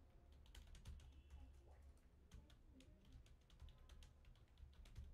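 Faint typing on a computer keyboard: a quick, uneven run of keystroke clicks.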